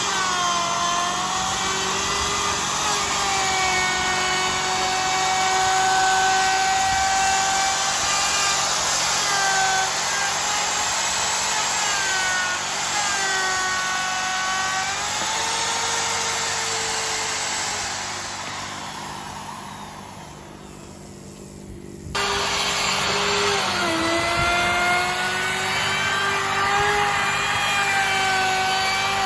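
Handheld electric power tool cutting wood, its motor pitch sagging and recovering as it bites into the cut. The sound fades down about two-thirds of the way through, then comes back abruptly.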